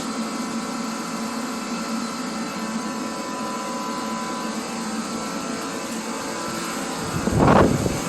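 Steady mechanical hum with faint held tones, broken about seven seconds in by a short, loud rushing burst.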